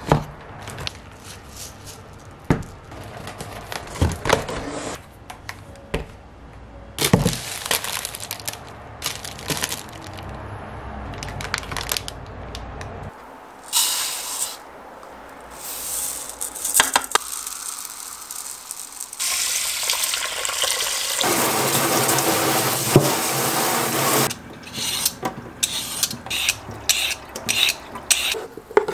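Kitchen handling sounds: first clicks and knocks of packaging being set down, then water running into a rice cooker's inner pot and a sink for several seconds while rice is washed and soaked, then quick short scraping strokes of burdock root being peeled near the end.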